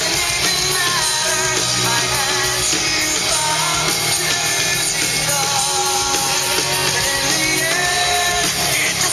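A rock song with a sung vocal.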